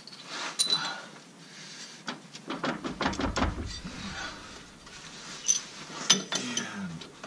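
Scattered metal clinks and light knocks of hand tools, bolts and the driveshaft's U-joint being handled at a Jeep transfer case output yoke.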